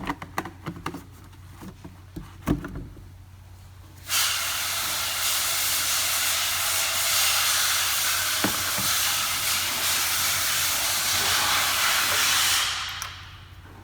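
A few clicks and knocks, then a loud, steady hiss that starts abruptly about four seconds in, lasts about eight seconds and fades out near the end.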